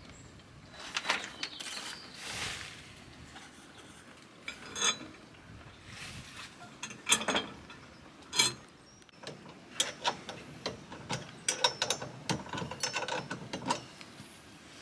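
Irregular clicks, clinks and brief rattles of metal parts and bolts being handled and fitted during assembly of a pull-behind seed spreader, the clicks coming more often in the second half.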